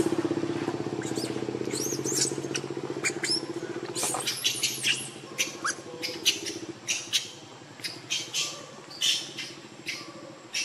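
A motor engine running with a low throb that fades away about halfway through, with many short high squeaks and chirps scattered throughout.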